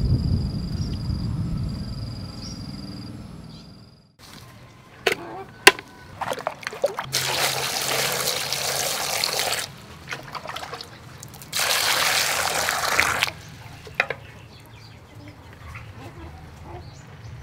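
A stream of water pouring into a plastic bucket of mud clams, in two pours of about two to three seconds each, with a few sharp knocks before them. Near the start there is a low outdoor rumble with a high, steady whine.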